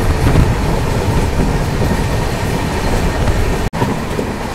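Passenger express train running along the line, heard from outside its coach: steady, loud running noise of the wheels on the rails, strongest in the low range. It cuts out for an instant about three and a half seconds in.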